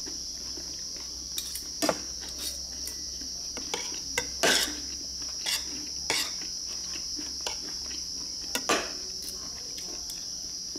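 Spoons and forks clinking and scraping against ceramic bowls, a dozen or so sharp clinks, over a steady high chirring of crickets.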